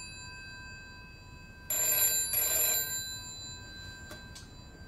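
Telephone ringing with a bell-like ring in a double cadence: two short rings close together, then a pause of about two seconds before the next pair.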